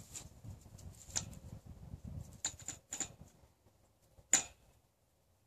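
A handful of sharp clicks and taps from metal parts being handled at the base of a steel greenhouse bow, the loudest one near the end; no drill is running.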